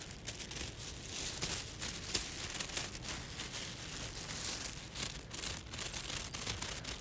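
Rustling and scratching from a nylon jacket rubbing against a phone's microphone as the phone is handled, with irregular crinkly scrapes over a low rumble.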